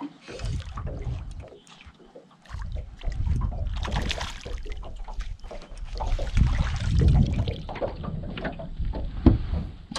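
A hooked bream splashing at the surface as it is played to the boat, with wind buffeting the microphone and small clicks and knocks.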